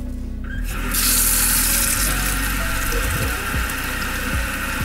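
Kitchen tap switched on about a second in and running steadily into a glass bowl of rice in a stainless steel sink: the rice being rinsed.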